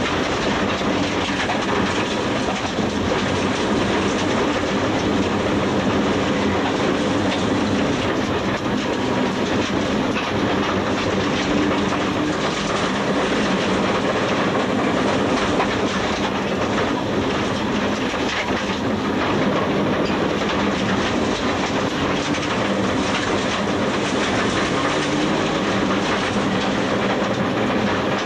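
Rally car at speed on a dirt stage, heard from inside the cabin: the engine running hard under a constant dense rattle and rush of stones and dirt against the underbody and tyres, at a steady loud level.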